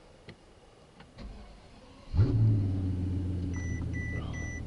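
The 2007 Mercedes-Benz CL600's twin-turbo V12 is started with the push button. The starter turns over, the engine catches about two seconds in with a short loud flare, then settles into a steady idle. Near the end the car's chime starts beeping, about two and a half beeps a second.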